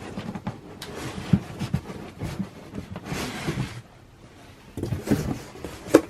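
A cardboard shoe box being worked out of its packaging by hand: sliding and rustling of cardboard and paper with scattered taps, and a sharp knock near the end.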